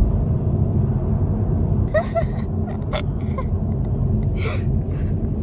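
Steady low rumble of road and engine noise inside a moving car's cabin, with a few brief faint voice sounds and small clicks about two to three seconds in.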